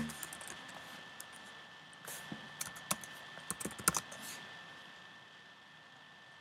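Keystrokes on a computer keyboard: a short, uneven run of key taps typing a search term, clustered in the first four seconds, after which the typing stops. A faint steady high tone sits underneath.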